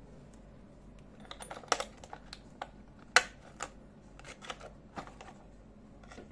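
Metal drill bits clicking and tapping against a plastic storage case and its holder as they are handled in and out. After a quiet second comes a quick, irregular run of sharp clicks, the loudest about three seconds in.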